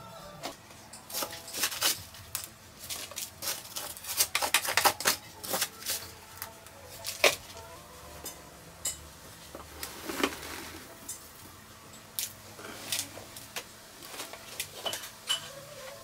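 Irregular clinking and knocking of hard objects being handled, a busy cluster about four to five seconds in and scattered single knocks after.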